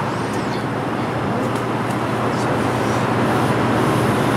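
Steady mechanical whirring and hum from a Redbox DVD rental kiosk's internal mechanism working to dispense a rented disc. It grows slightly louder in the second half.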